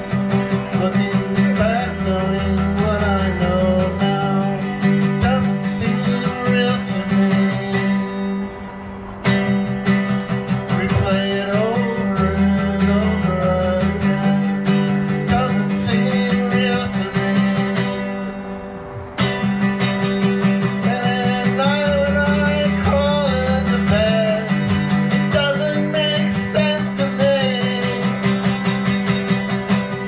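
Strummed guitar with a man singing over it, in a steady rhythm. The strumming eases off briefly twice, about nine and nineteen seconds in, each time coming back in with a hard strum.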